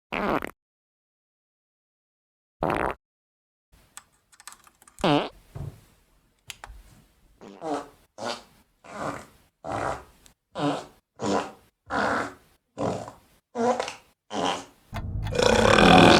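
Recorded human farts, one after another: two single farts, a few scattered ones, then a quick run of about ten short farts roughly 0.7 s apart. About a second before the end a longer, louder rough sound begins.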